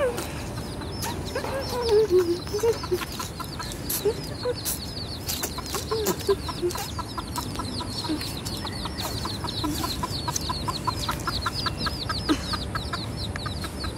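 A mother hen clucking softly while her chicks peep around her: many short, high, falling cheeps that become a fast, continuous run from about a third of the way in.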